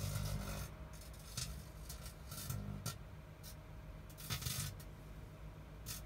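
Microwave oven running with a steady low electrical hum, while light bulbs and metal inside the cavity arc, giving irregular sharp crackling snaps.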